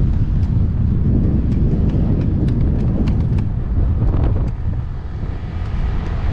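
Wind buffeting the microphone over the low rumble of a motorcycle riding on the road, dropping slightly in level about four and a half seconds in.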